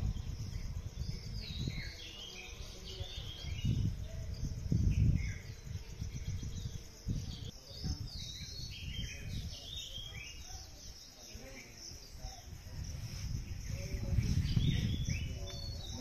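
Several birds chirping and calling in short, gliding notes throughout, over irregular low gusts of wind buffeting the microphone. The gusts are strongest about four to five seconds in and again near the end.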